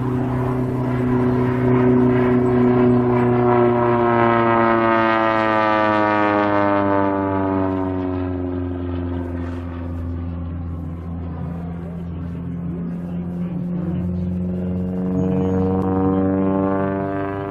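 Single-engine propeller aerobatic airplane flying overhead: a steady engine-and-propeller drone that slides down in pitch over several seconds, then rises again near the end as the plane pulls up into a loop.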